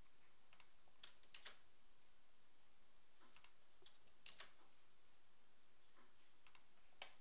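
Faint clicks of a computer keyboard and mouse, about ten of them at irregular intervals, over a quiet room hush.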